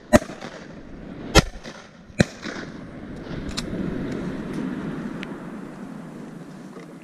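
Shotguns firing at ducks: three loud shots in the first two and a half seconds, then two fainter, more distant shots, followed by a few seconds of low, even noise.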